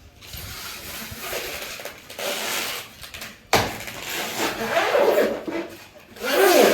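Rustling and scraping as fridge packaging is handled and pulled off, with a sharp knock about three and a half seconds in.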